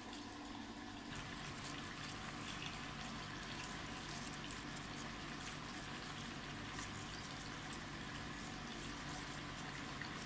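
Faint rustling of cherimoya leaves and branches as a hand handles the fruit on the tree, over a steady background hiss.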